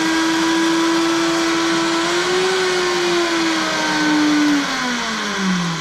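Countertop blender motor running steadily through a thick strawberry-banana fruit smoothie. Its pitch rises a little midway, then falls as the motor slows down near the end.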